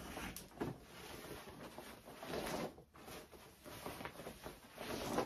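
Rustling and handling noise of denim jeans being pulled out of a closet and shaken out, with a few light knocks.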